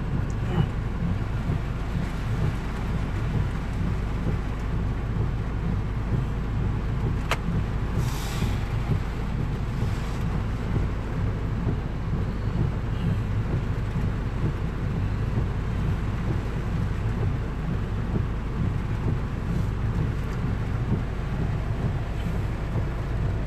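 Heavy rain falling on a car and the flooded road, heard from inside the cabin over a steady low rumble from the car. One sharp click about seven seconds in, followed by a brief hiss.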